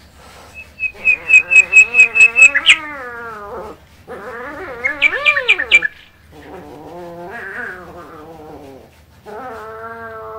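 A cat meowing in four long drawn-out calls that rise and fall in pitch. Over the first two calls a bird chirps in quick runs of sharp high notes, the loudest sound.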